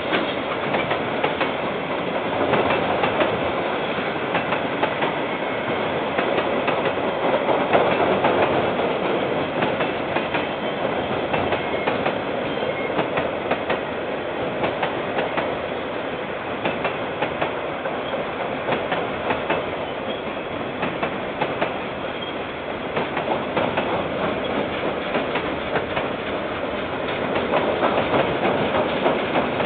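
A KiwiRail train rolling past, its wagons' wheels clicking steadily over the rail joints, heard through a security camera's microphone.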